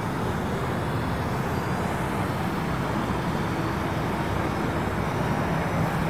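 Parrot Anafi quadcopter flying some distance off: a faint, steady propeller hum under a constant rushing noise.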